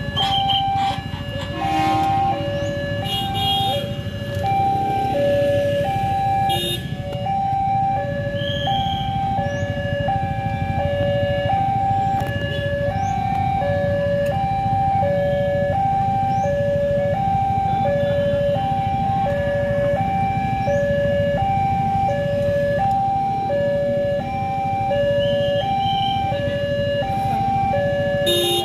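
Railway level crossing warning alarm sounding continuously: an electronic two-tone signal, a high and a low tone alternating about twice a second, over a low traffic rumble.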